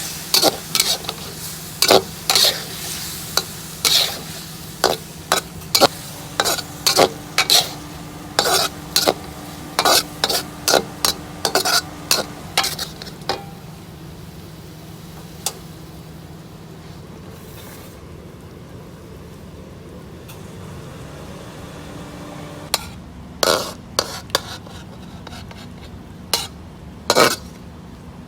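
A cooking utensil clacking and scraping against a pan while beef with basil is stir-fried. The quick strokes come for about the first half, stop for around ten seconds, then start again near the end, over a steady low hum.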